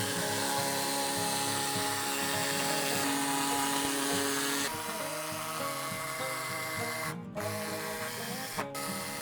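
Electric jigsaw cutting a circle out of a wooden board, the blade running steadily, with background music. The motor's sound changes about halfway through and cuts out briefly twice near the end.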